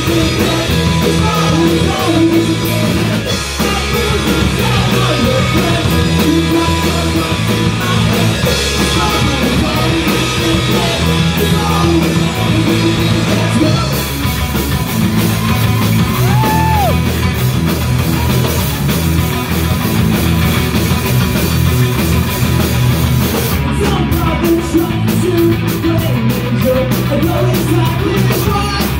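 Rock band playing loudly live: a singer over electric guitar, bass guitar and a drum kit, in a punk/emo style.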